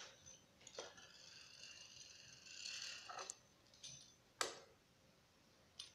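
Faint sounds of a pizza cutter's wheel rolling through a thin sheet of dough on a table, with a few light clicks and taps, the sharpest about four and a half seconds in.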